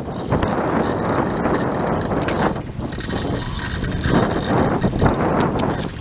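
Steady rushing noise of wind and sea around an open fishing boat, with a low rumble underneath.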